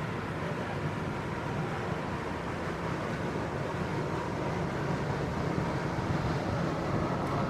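Steady outdoor city ambience: a continuous low rumble with a wash of noise, growing slightly louder in the second half.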